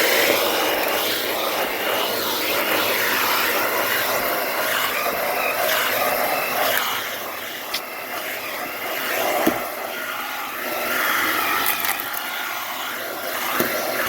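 Shark Zero-M vacuum cleaner running steadily while vacuuming carpeted stairs, with a couple of sharp knocks as it is moved, one about two thirds of the way in and one near the end.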